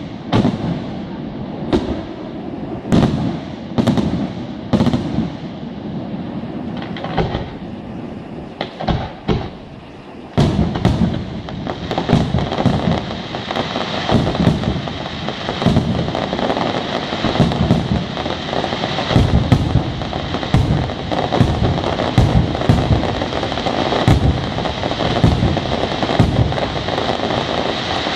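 Aerial firework shells bursting: separate booms about once a second, then from about ten seconds in a dense, continuous barrage of bangs and crackling.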